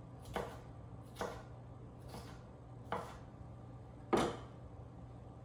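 Kitchen knife chopping bell pepper on a wooden cutting board: about five separate knocks of the blade against the board, roughly a second apart, the loudest about four seconds in.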